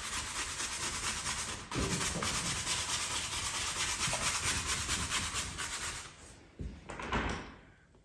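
Stiff flat bristle brush scrubbing green paint onto a stretched canvas in short repeated strokes, a steady scratchy rubbing. It breaks off briefly a little under two seconds in and thins out and fades over the last two seconds.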